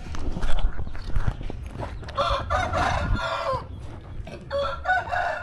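A rooster crowing twice: one crow about two seconds in and another near the end, over low rumbling background noise with scattered knocks in the first two seconds.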